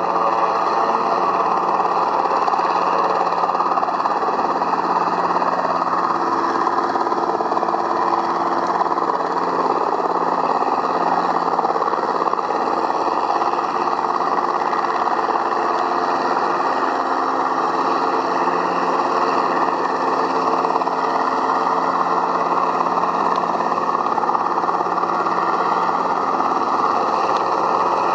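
Extra EA-300LX aerobatic plane taxiing, its Lycoming six-cylinder engine and propeller running steadily at low power.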